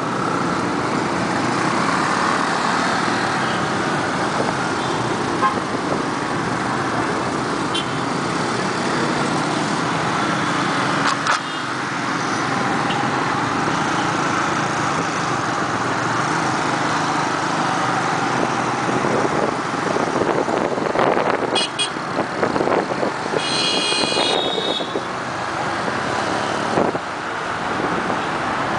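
Motorcycle ride through dense city traffic: the bike's engine and the surrounding cars and scooters make a steady traffic noise, the engine note rising and falling. A horn toots briefly about 21 seconds in and again, longer, about 23 seconds in.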